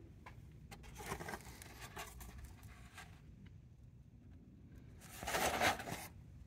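Cardboard cable guard of a Legrand wiring enclosure being pulled back by hand and rubbing against the enclosure's plastic frame: a few short scrapes and rustles, then a louder scrape lasting about a second near the end.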